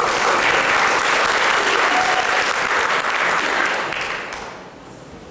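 Audience applauding, dying away after about four seconds.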